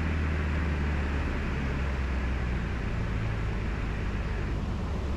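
Cessna 150's four-cylinder Continental O-200 engine and propeller running steadily in flight, heard from inside the cabin as a low drone under a broad rush of air noise; the low drone shifts in pitch about halfway through.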